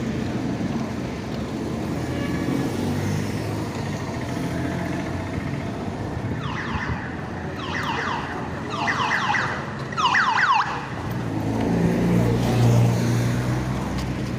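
City street traffic noise, with a car alarm sounding four falling whoops about a second apart in the middle. A vehicle engine passes near the end.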